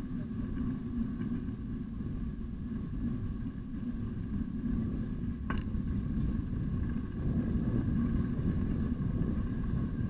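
Low rumble of wind and tyre noise picked up by a bike-mounted camera while riding a bicycle along a paved path, with a faint steady hum above it. A brief sharp click or chirp about five and a half seconds in.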